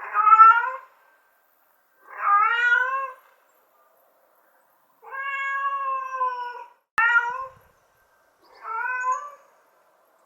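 Domestic cat meowing five times in a row, the calls rising at the start and the middle one drawn out for nearly two seconds; a mother cat calling for her kittens. A sharp click comes just before the fourth meow.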